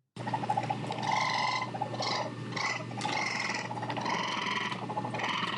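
Raccoon chittering in rapid rough trills, with a few short pauses about two seconds in.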